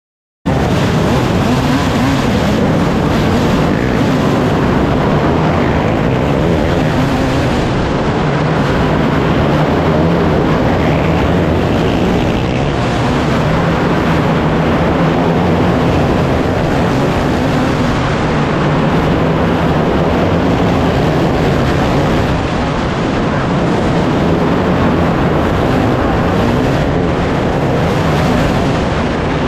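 Several race car engines running hard on the track, a loud continuous din with a few engine pitches drifting up and down as cars pass. It starts abruptly about half a second in.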